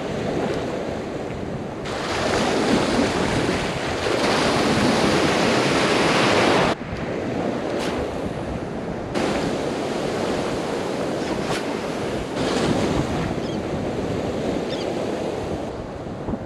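Small surf waves washing and breaking in the shallows, with wind buffeting the microphone in gusts that come and go abruptly.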